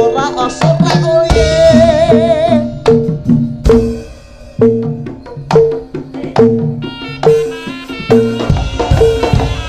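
Javanese jaranan sentherewe ensemble music: hand-drum strokes and a steady repeating two-note pitched pattern, with a wavering high melody line in the first few seconds.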